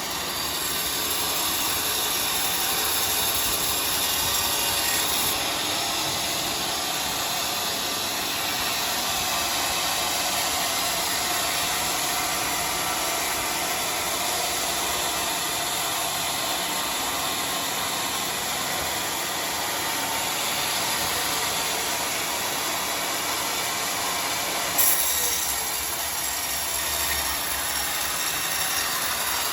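Sawmill saw running steadily through a large log, a constant mechanical whine with cutting noise. About 25 seconds in there is a short sharp knock, and the sound changes after it.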